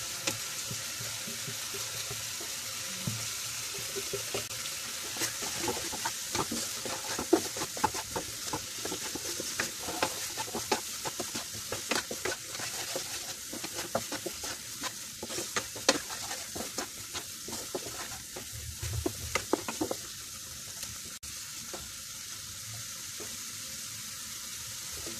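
Onion-tomato masala sizzling in a nonstick kadai as a wooden spatula stirs the freshly added ground spices through it, with frequent short scraping knocks. The stirring stops about 20 seconds in, leaving a steady sizzle.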